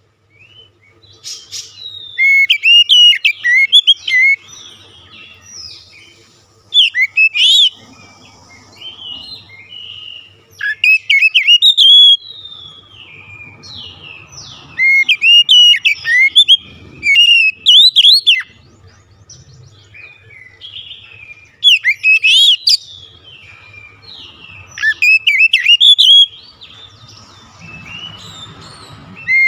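Oriental magpie-robin singing loudly: bursts of rapid, varied whistled phrases lasting a second or two each, repeated every few seconds with short quieter pauses between.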